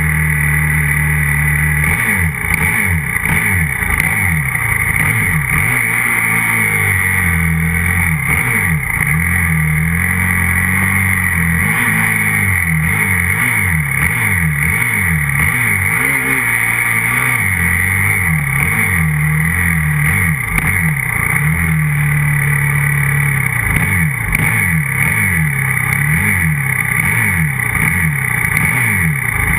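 125cc grass-track motorcycle engine on a stationary bike, revved up and down again and again in quick blips, its pitch swooping and falling back toward idle, with a short steady idle at the start and a few steadier stretches.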